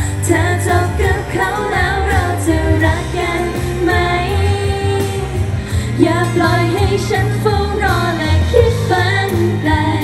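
Thai pop song performed live: female voices singing into handheld microphones over a pop backing track with a steady low beat.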